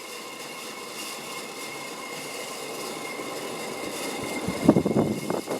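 Casablanca Delta II ceiling fan running on high: a steady motor hum and whir from a fan whose worn bearings are loud and due for replacement. About four and a half seconds in, louder irregular knocks and rustles of handling rise over it.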